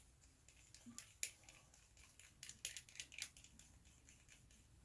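Faint, irregular clicks and ticks of a thin paintbrush stirring airbrush paint in a small plastic mixing cup.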